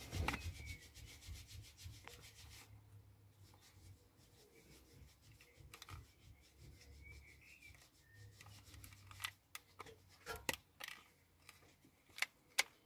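Faint plastic rubbing and scraping as a Rover 75's rear air vent is handled and its inner grille is levered out with a small metal trim tool. A few light clicks in the second half.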